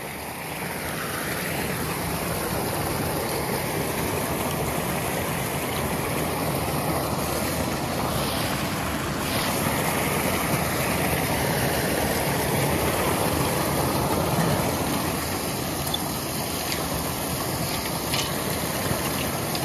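Steady rush of floodwater pouring over a beaver dam, with a few faint knocks now and then.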